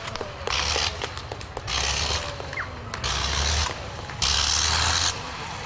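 1913 Caudron G.III's engine cutting in and out as the pilot flips the ignition on and off. About four bursts of power come roughly every second, with quieter gaps between. This is the normal way this engine's power is controlled.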